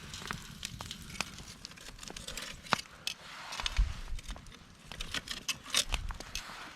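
Wood cooking fire crackling, with irregular sharp pops and snaps over a faint hiss.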